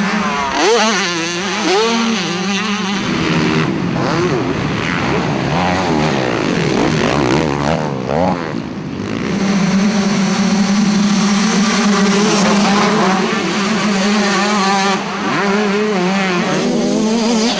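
Two-stroke dirt bike engines revving hard, the pitch rising and falling again and again in the first half, then held steady at high revs for much of the second half.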